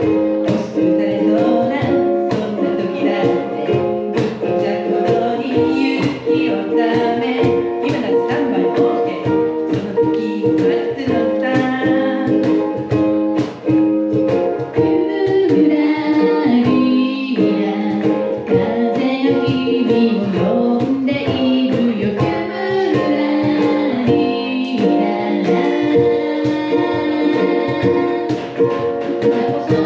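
Three ukuleles strumming a steady rhythm while the players sing a cheerful children's march song together.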